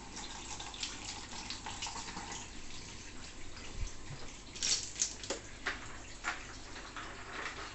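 Running, splashing water with scattered light clicks and drips, and a brief louder rush of water about two-thirds of the way through.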